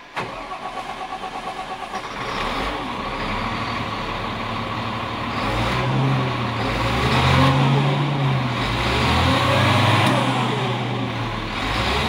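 Caterpillar 950H wheel loader's diesel engine, heard from inside the cab, cranking for about two seconds, catching and running. From about five seconds in it revs up and falls back twice, its pitch rising and dropping, then settles.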